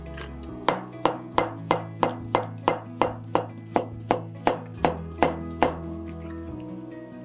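A chef's knife slicing a cucumber into thin rounds on a cutting board: about fifteen sharp, even knife strikes, roughly three a second, starting just under a second in and stopping about a second and a half before the end.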